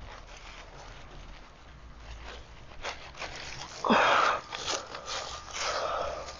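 Dry leaves and compost rustling and crunching as gloved hands scoop them out from under a wooden compost bin. It starts about three seconds in, with the loudest scrape about four seconds in.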